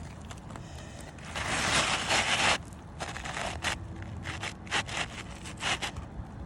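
Rough scraping and rubbing on roof shingles: one long scrape about a second and a half in, then a run of short scrapes and light knocks.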